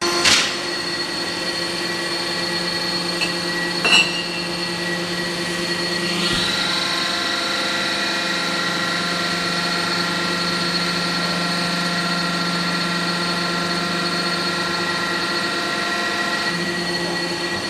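Pipe-tee cold-forming machine running with a steady mechanical hum, a sharp click near the start and another about 4 s in, and a slight rise in the hum about 6 s in.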